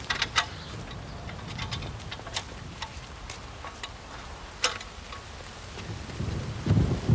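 Rain falling, with scattered sharp ticks, and a low rumble of thunder that swells near the end.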